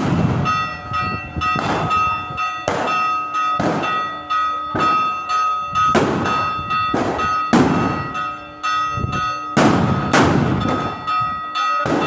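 Church bell ringing over and over in a continuous peal, with loud sharp bangs going off about once a second. This is the festive Orthodox Easter Resurrection peal.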